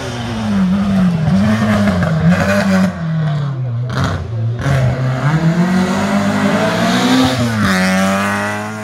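Opel Ascona historic rally car's engine working through a tight bend: the revs waver up and down with throttle blips and gear changes, fall away in the middle, then climb hard as the car accelerates up past close by, before dropping back and holding steady near the end.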